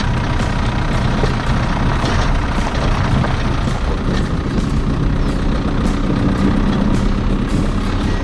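Motor vehicle engine running steadily with a low drone, its hum growing a little stronger in the second half.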